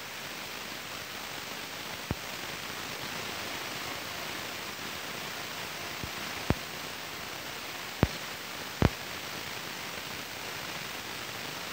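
Steady outdoor hiss picked up by a phone microphone, with four sharp clicks or knocks spread through it, the last two less than a second apart.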